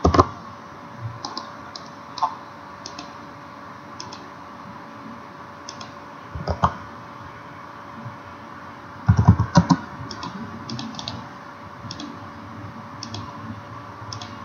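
Computer keyboard keystrokes and mouse clicks: scattered single clicks, then a quick run of several keystrokes about nine seconds in, over a faint steady hum.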